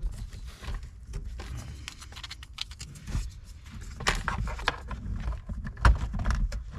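Handling noises of a wiring harness and plastic pass-through being fitted by hand: scattered clicks and rustles, busiest near the end, over a low rumble.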